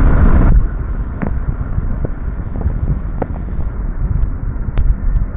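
Road and wind noise of a moving car heard from inside the cabin: a steady low rumble, with a louder rush in the first half second.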